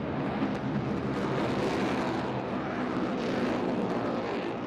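Lockheed Martin F-22 Raptor's twin Pratt & Whitney F119 turbofans running as the jet flies overhead, a loud, steady jet noise.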